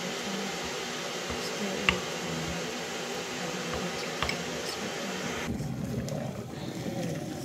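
Metal spoon stirring wet pap (fermented corn paste) in a ceramic bowl, with a few sharp clinks of the spoon against the bowl, the loudest about two seconds in. A steady fan-like hum runs underneath.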